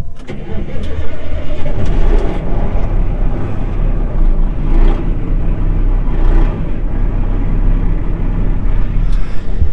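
Large farm tractor's diesel engine catching at the very start and then running steadily, a good start after about a month of sitting unused.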